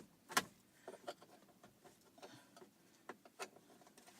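Plastic dashboard trim panel of a Nissan Altima being tugged at and pried by hand: a string of faint, irregular clicks and taps, the sharpest about half a second in, as the panel's latches resist coming free.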